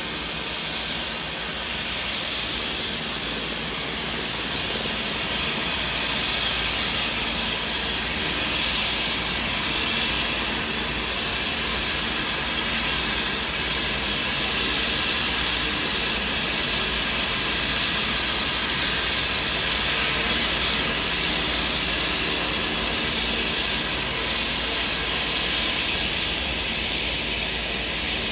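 Engines of a small turboprop plane running at takeoff power: a steady, hissing engine noise that swells a little after about six seconds.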